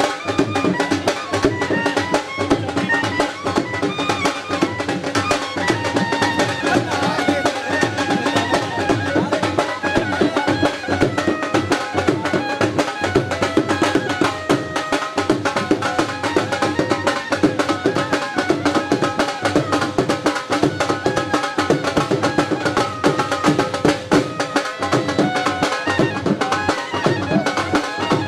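Live traditional drumming at a mehndi celebration: fast, continuous, evenly driven drum strokes, with a wavering melody line playing over the beat.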